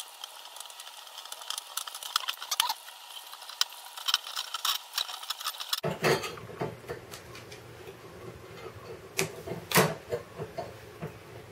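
Black electrical tape being pulled off the roll and wrapped by hand around a wire joint on a copper pipe: a run of irregular crackles and small clicks.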